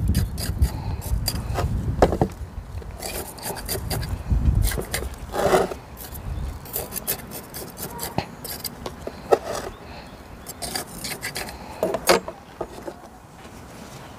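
Metal tweezers and gloved fingers working gritty potting soil into a small ceramic pot, giving irregular scratching, scraping and clicking of grit against the pot. A low rumble sits under the first few seconds.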